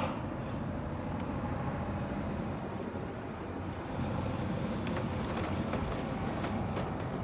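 A steady low rumble with a few faint knocks and clicks as a filter puller drags filters out of a commercial make-up air unit.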